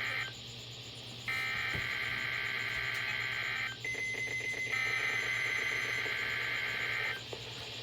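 NOAA Weather Radio SAME digital header for a Required Weekly Test: raspy two-tone data bursts, the tail of one and then two more of about two and a half seconds each, a second apart, with a brief steady tone between the last two.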